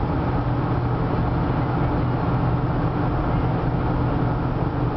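Steady road and engine noise inside a car's cabin at highway speed, an even rush with a low hum that does not change.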